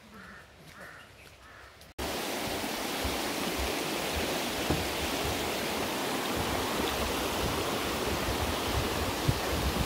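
Faint bird calls for about two seconds, then a sudden cut to a fast-flowing rocky river: a loud, steady rush of water with low rumbling gusts of wind on the microphone.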